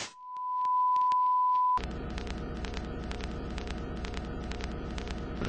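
A single steady electronic test tone swells in and holds for almost two seconds, then cuts off abruptly. A dense rumbling noise with a low hum and rapid, regular ticking takes over for the rest.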